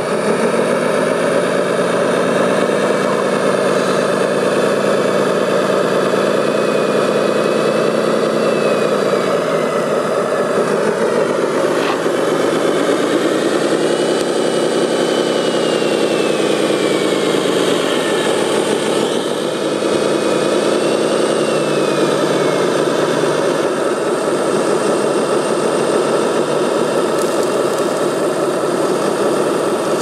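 Radio-controlled model Komatsu wheel loader working: a steady engine-like drone, with a whine that rises and falls three times as its motors speed up and slow down.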